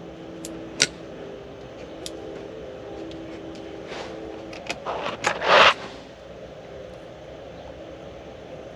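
Light clicks and a brief rustle of hands handling a small tractor fuse and pliers, over a faint steady hum that fades out about six seconds in.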